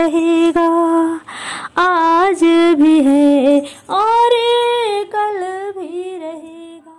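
A woman singing a Hindi film song solo, with no accompaniment heard, in bending phrases with a short breath between them. Her last note is held and fades out near the end.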